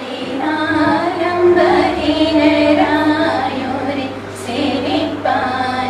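Women's voices singing a slow melody together, unaccompanied, with long held and sliding notes. A faint steady low hum runs underneath.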